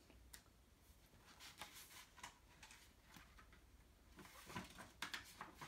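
Near silence: room tone, with faint rustles and soft taps as a picture book's page is turned about four seconds in.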